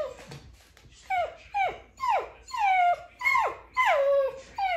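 A collie-type dog whining in a run of about eight high cries, each falling in pitch, a few of them drawn out longer than the rest.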